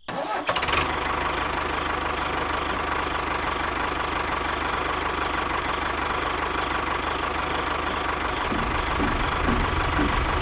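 A tractor engine running steadily.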